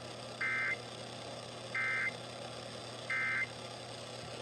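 Emergency Alert System end-of-message code: three short, identical modem-like data-burst squawks about 1.3 seconds apart, marking the end of an AMBER Alert broadcast, over a steady background of radio hiss.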